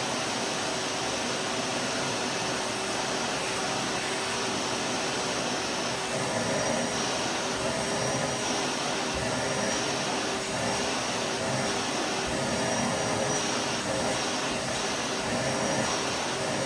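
Vacuum cleaner running steadily: an even rushing noise with a faint steady hum in it.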